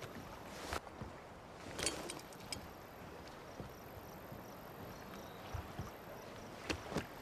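Faint outdoor ambience with a few short clicks and knocks, the clearest about a second in, around two seconds in and near the end.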